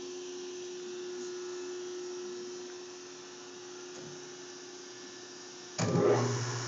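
TOS Trenčín SN40C lathe humming steadily with power on, then about six seconds in a sudden loud clunk as the start button is pressed and the lathe's motor starts, settling into a lower steady hum.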